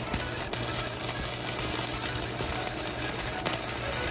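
Gasless flux-core semi-automatic welder laying a weld bead: a steady, dense crackling sizzle from the arc.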